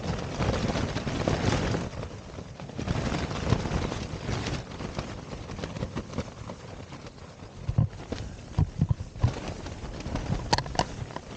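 Storm wind gusting against a Pumori mountain tent, its fabric flapping and snapping in surges. Irregular knocks and clicks run through it, with several sharp ones near the end.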